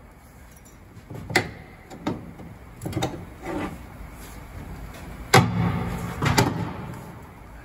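Long steel pry bar levering and knocking against a railcar's riveted steel underframe: about six separate metal clanks and bangs, the loudest about halfway through.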